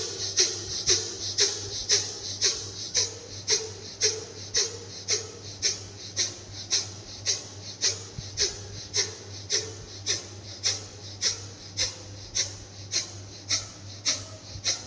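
A woman breathing forcefully and rapidly in and out through both nostrils in a pranayama exercise: short, sharp nasal hisses about two a second, growing a little fainter towards the end. A steady low electrical hum runs beneath.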